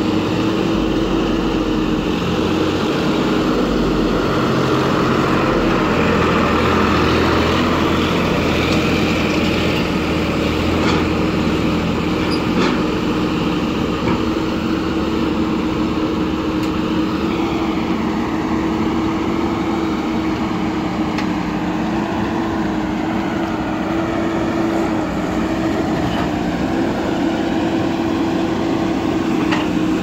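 Diesel engines of a JCB 3DX backhoe loader and a farm tractor running steadily as the tractor backs its trolley up beside the loader, the engine note shifting a little about halfway through.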